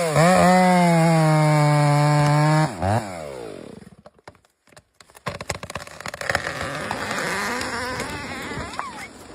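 Chainsaw revved to full throttle and held at a steady high pitch for about two and a half seconds, then let off so the engine note falls away. After a short near-silent gap, a rougher, noisier stretch of saw cutting follows.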